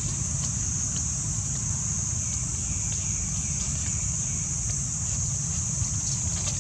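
Steady outdoor background: an even high-pitched hiss over a low rumble, with faint small clicks scattered through.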